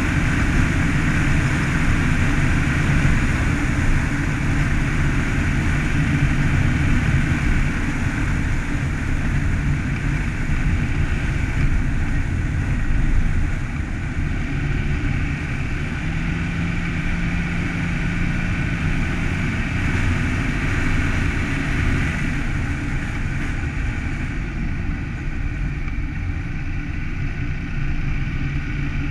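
A car driving steadily along a snow-packed road: engine hum mixed with tyre and road noise, with no sudden changes.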